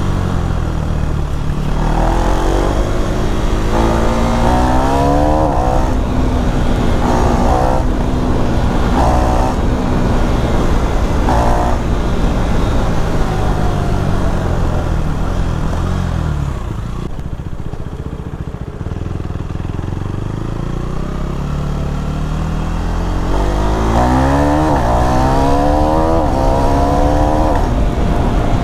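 KTM Duke 390 Gen3's single-cylinder engine accelerating hard through the gears, its pitch climbing in each gear and dropping at each shift. About halfway it winds down and runs quieter for several seconds, then pulls up through the gears again near the end.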